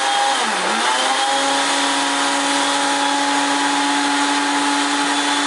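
Countertop blender motor running on its ice-crush setting, chopping frozen banana chunks. The motor's pitch sags briefly about half a second in, then it runs at a steady loud whir.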